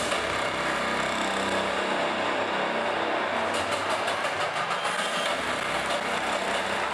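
Steady engine-like rumble with a hiss over it, a stage sound effect played over the hall's loudspeakers.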